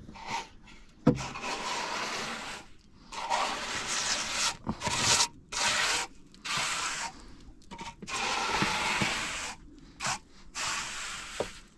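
Trowel scraping and smoothing wet cement, in a series of about eight rough strokes, each around a second long, with short pauses between.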